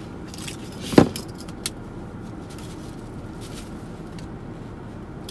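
Tissue being handled and wiped against the face, with one short sharp sound about a second in and fainter rustles and clicks, over a steady low hum inside a car cabin.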